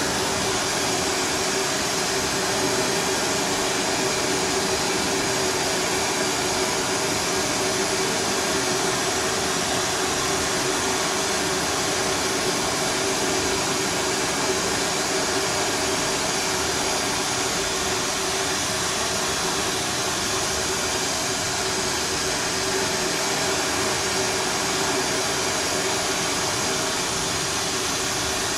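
Oxy-fuel gas torch flame running with a steady hiss, playing on a front coil spring to heat it cherry red so the spring softens, collapses and loses its tension.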